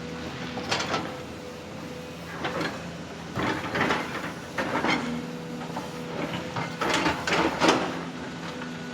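Excavator at work: a steady machine hum under repeated short bursts of scraping and rattling, the loudest near the end.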